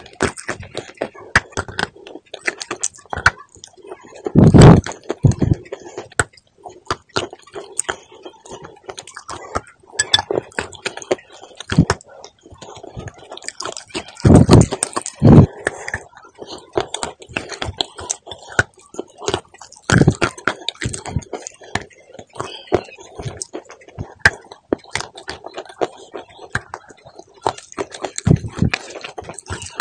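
Close-miked biting and chewing of dry gray clay paste: a fast run of crisp crunches and clicks, with several louder, deeper crunching bites.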